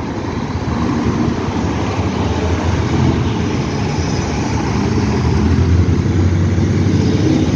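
Road traffic at a roundabout: cars passing close by and an articulated diesel city bus driving around, a steady low engine drone that slowly grows louder.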